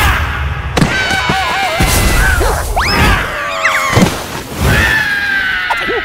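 Cartoon slapstick soundtrack: several thuds and crashes, rising whistle-like glides and the squeaky, wobbly gibberish voices of cartoon larvae and a shrieking rat, over music.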